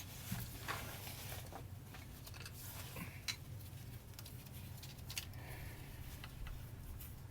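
Faint scattered clicks, taps and rustles of handling over a low, steady hum.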